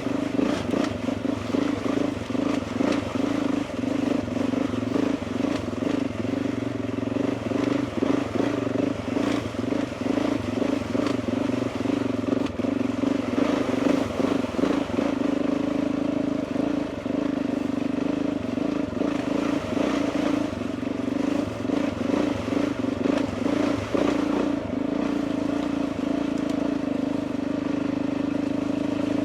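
Motorcycle engine running steadily at low speed, its pitch barely changing, with frequent short knocks and rattles throughout.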